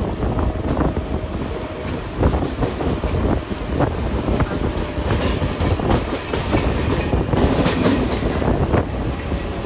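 Mumbai suburban electric local train running along the track, heard from its open doorway: a steady rumble with the wheels clicking irregularly over rail joints.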